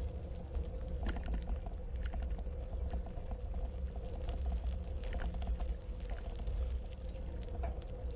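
Bicycle tyres rolling over a gravel trail, with a steady low rumble of wind on the action camera's microphone and frequent irregular clicks and rattles from gravel and the bike. A faint steady hum runs underneath.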